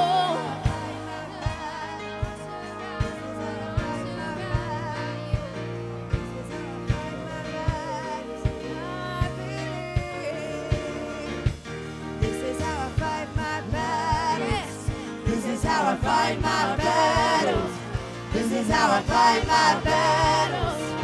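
Live gospel worship music: sustained keyboard chords over a steady beat, with a woman singing into a microphone. Her voice wavers and grows stronger in the second half.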